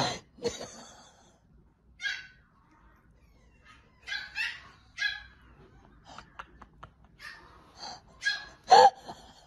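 Shih Tzu giving short, scattered whimpers and yips, the loudest near the end.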